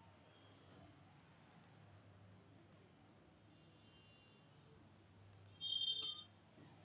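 Quiet pause with a few faint scattered clicks, then a short cluster of louder clicks near the end.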